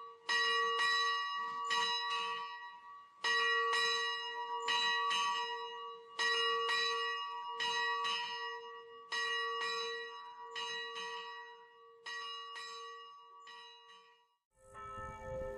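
Church bells ringing in a repeating pattern: a fresh group of strikes about every three seconds, the ring lingering between them. The ringing stops about a second before the end, where a different sound with a low rumble starts.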